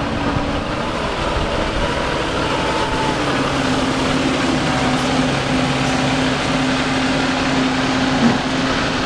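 A parked fire truck's diesel engine idling steadily, a constant low drone.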